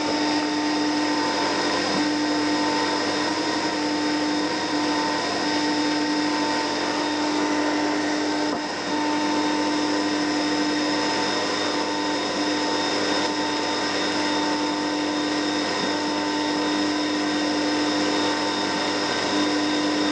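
CNC mini mill's spindle motor running steadily, a constant whine over a hiss, with a brief dip about nine seconds in.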